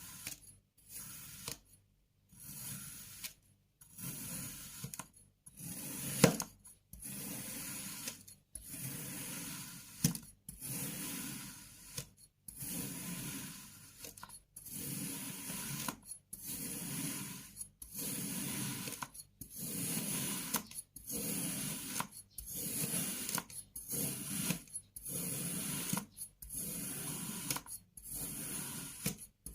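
Kinetic sand being worked by hand: a long series of grainy, crunchy strokes, roughly one a second, each separated by a brief silence, with one sharp click about six seconds in.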